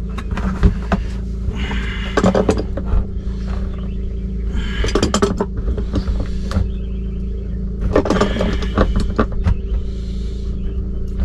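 Tongue-and-groove pliers gripping and turning the plastic drain nut under a plastic RV sink, tightening it so the plumber's putty seals: bursts of clicking and scraping, with the plastic bowl creaking as it is handled, over a steady low hum.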